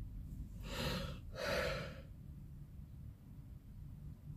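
A person yawning: a long breathy intake of air, then a louder breathy exhale.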